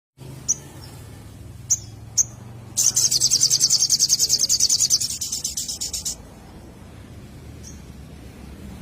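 Sogon bird call used as a lure: a few short high chirps, then a loud rapid high trill of about eight notes a second lasting about three seconds, and one more chirp near the end.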